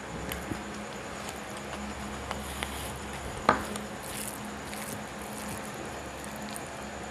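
Fingers mixing and mashing rice with boiled vegetables on a plate, with soft squishing and scattered light clicks. One sharper click comes about halfway through.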